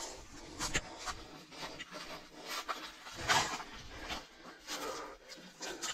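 Footsteps scuffing along a hill trail and the breathing of a hiker climbing on foot, with one longer audible exhale a little past the middle.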